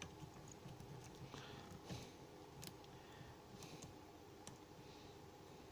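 Faint, scattered clicks of a lock pick and tension wrench working the pins inside a 38 mm aluminium Smith & Locke padlock, a few sharper ticks standing out over a quiet background.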